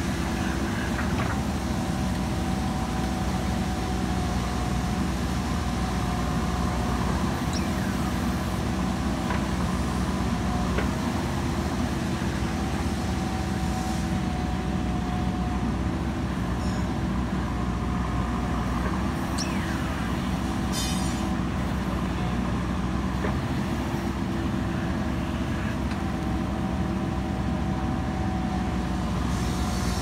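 JCB 3DX backhoe loader's diesel engine running steadily under digging load, with a higher whine that comes and goes every several seconds and a few short knocks as the backhoe bucket works the soil.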